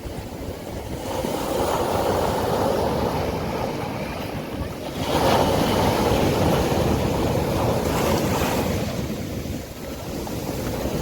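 Sea waves breaking and washing up a beach, a continuous rushing surf that swells about a second in and again, louder and hissier, about five seconds in before easing off.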